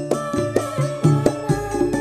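Live band music: an upbeat traditional-style song with a steady drum beat under sustained melody notes.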